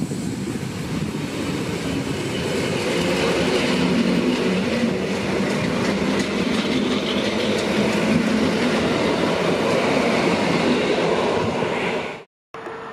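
SKM EN71 electric multiple unit moving past along the platform track, a loud steady rumble of wheels and traction equipment. It cuts off abruptly near the end, followed by a quieter steady hum.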